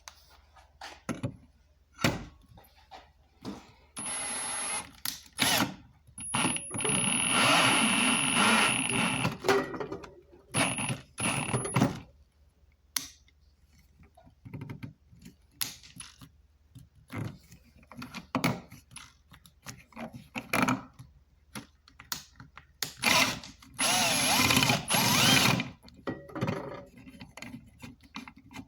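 Drill/driver running in bursts of a few seconds, driving a rivet-nut setting adapter: a short run about four seconds in, a longer one from about six to nine seconds, and another near twenty-four seconds. Clicks and knocks of handling fall between the runs.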